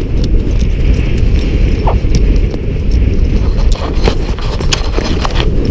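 Strong wind buffeting the microphone in a loud, steady rumble, with the quick, irregular footfalls of someone running.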